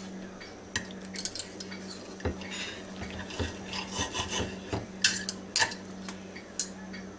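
Knife and fork scraping and clicking against a dinner plate while a cooked chicken thigh is cut, in a run of short, irregular scrapes and taps.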